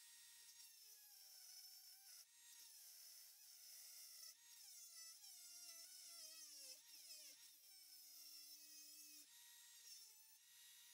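Very faint whine of a rotary tool's cut-off disc cutting a stainless steel piano hinge, its pitch sagging and recovering as the disc bites into the metal.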